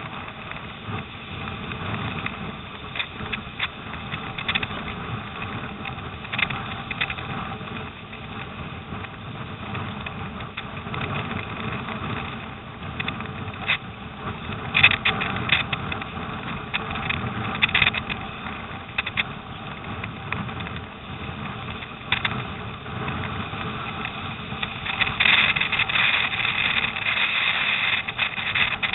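Storm wind and choppy water rushing against a surfski being paddled through rough waves, with sharp splashes now and then from the hull and paddle. Louder near the end.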